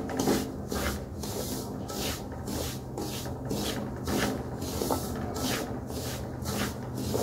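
Wooden spatula scraping and stirring semolina roasting in ghee in a metal kadai, in even rhythmic strokes about three a second. The semolina is almost fully roasted, gone loose and light under the spoon.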